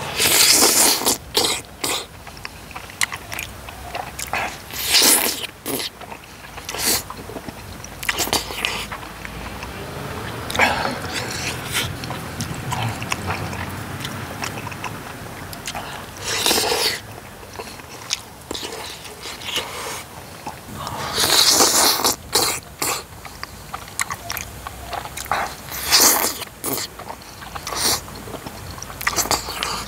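A person eating tteokbokki up close: wet slurping of saucy rice cakes and noodles and chewing with the mouth, with a loud slurp every few seconds.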